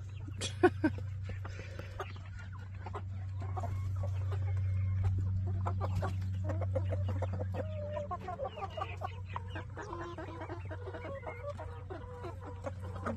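Hens clucking while one pecks maggots out of a rubber pan, its beak tapping the pan in quick, irregular taps, over a steady low hum.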